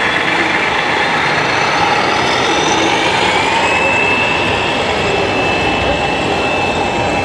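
Radio-controlled model truck running: steady engine noise, with a thin whine that rises a little about three seconds in and then holds.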